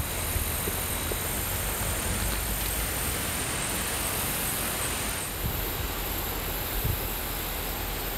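Steady outdoor background noise, a soft even hiss like light wind and rustling, with a faint thin high tone during the first few seconds and a couple of soft low thumps.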